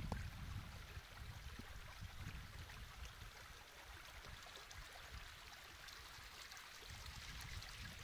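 Faint running water of a small stone-lined irrigation channel, a steady trickle, with a low uneven rumble underneath.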